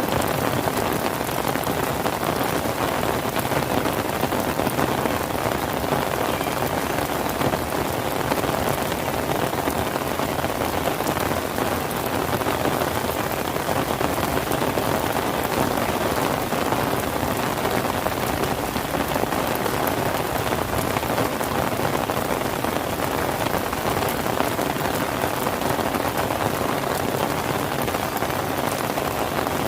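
Steady heavy rain falling and pattering on surfaces, a dense, even hiss with fine crackle of drops throughout.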